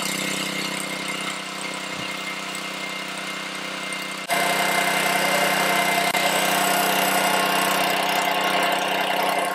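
Small gasoline engine running steadily, driving the injector's pump, with an even hum; it becomes louder about four seconds in.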